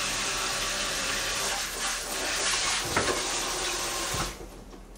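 Food sizzling in a hot frying pan, a steady hiss with a couple of light utensil clicks about three and four seconds in; it cuts off suddenly a little after four seconds.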